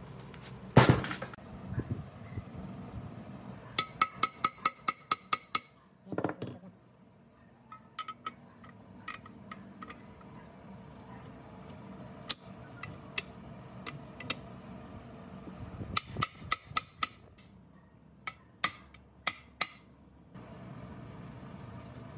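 Metal clinking and tapping: quick runs of light, ringing metal taps at about six a second, with a couple of heavier knocks between them.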